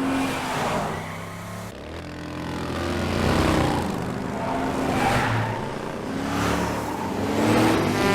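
Motor vehicle engines revving and passing by, their pitch rising and falling in several sweeps.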